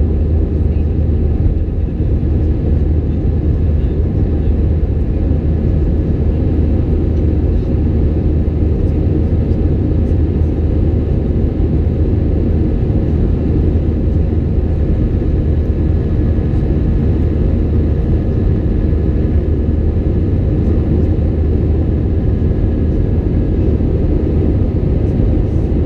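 Airbus A320-200 cabin noise during the climb after takeoff: the jet engines and the rush of air make a steady, unchanging low rumble, heard from inside the cabin at a window seat over the wing.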